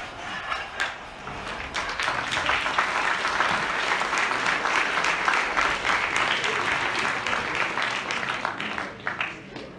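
Theatre audience applauding. The clapping swells over the first couple of seconds, holds, then dies away near the end.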